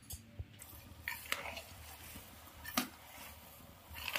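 Metal spatula scraping and knocking against a kadhai while stirring thick moong dal halwa: a few scattered sharp clicks, the loudest about three seconds in.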